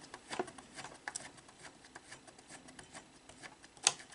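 Plastic gears of a Sony SLV-R5UC VCR's tape-loading mechanism being turned by hand, giving faint, irregular small clicks and ticks, with one louder click near the end. The cam gear is moving the mechanism back toward its unloaded home position.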